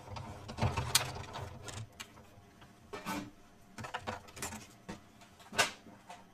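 Hand-cranked Big Shot die-cutting machine being turned to run an embossing folder and plates through its rollers, a steady low grinding rumble with clicks that stops about two seconds in. After it, scattered clicks and knocks, with a sharp one about five and a half seconds in.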